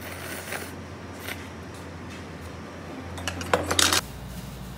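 Noodles slurped in short bursts, then metal chopsticks and spoon clinking sharply against the pan and dishes in a quick run of clicks near the end, the loudest part; the sound cuts off abruptly to a steady low hum.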